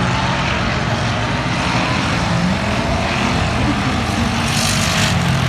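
Engines of several bump-to-pass race cars running around an oval track, a steady drone, with a brief rise in high-pitched noise near the end.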